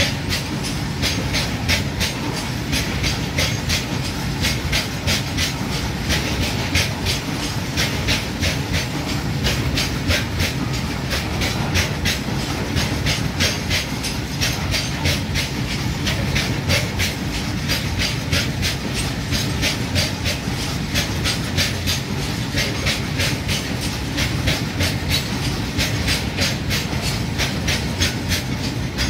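Loaded open goods wagons of a long freight train rolling past close by: a steady low rumble with a rapid, regular clickety-clack of steel wheels on the rails.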